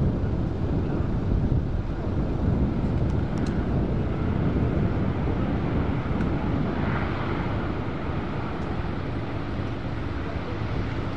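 Alenia C-27J Spartan's two Rolls-Royce AE 2100 turboprop engines and propellers heard from the ground as a steady rumble, with the aircraft on low approach to land. It swells a little about two-thirds of the way through, and a steady propeller tone comes in near the end.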